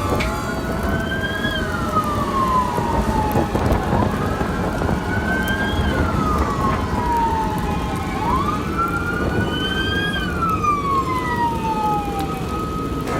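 Emergency vehicle siren in a slow wail: three cycles, each rising quickly and then falling away over about three seconds. A steady held tone joins near the end, over heavy low rumbling noise.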